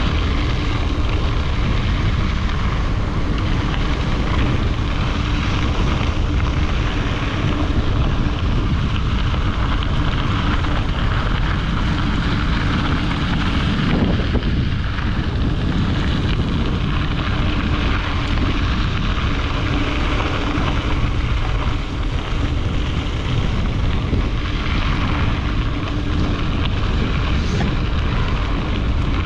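Wind rushing and buffeting over the camera microphone of a gravel bike rider moving at speed: a loud, steady roar with no break.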